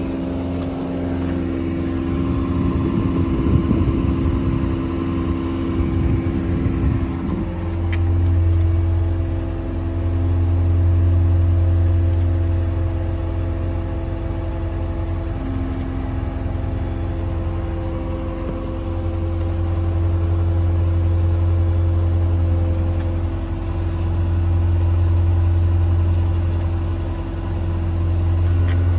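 Hydraulically driven air compressor on a diesel service truck running, with the truck's 6.7 Power Stroke diesel running to drive it. It makes a steady low hum whose loudness swells and eases every few seconds, with some irregular rattling in the first several seconds.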